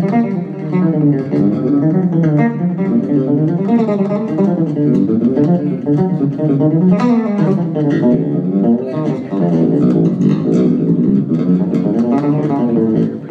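Solo electric bass warm-up: a stream of quick plucked notes in rising and falling runs and arpeggios, played without pause.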